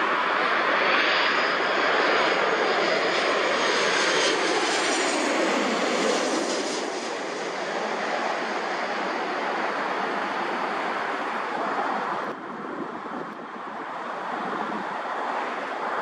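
Twin-engine jet airliner passing low on approach, its engines running with a loud rush and a high whine that falls in pitch as it goes by. The noise then settles to a steadier, quieter rumble and drops suddenly about twelve seconds in.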